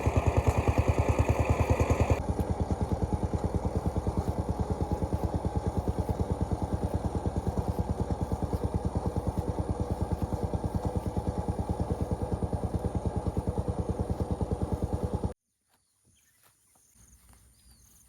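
A small engine running with an even, rapid pulse. Its tone shifts about two seconds in, and it cuts off abruptly near the end.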